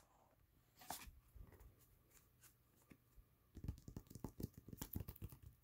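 Faint rustling and crinkling of glossy photo prints being handled in a binder, with a soft tap about a second in and a quick run of paper rustles and clicks near the end.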